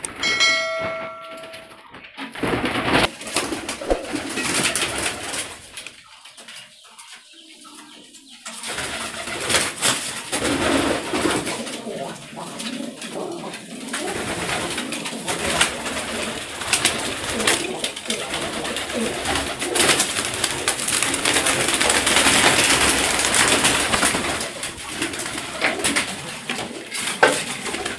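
Many domestic pigeons cooing together in a loft, a dense continuous chorus that dips briefly about six seconds in and swells again.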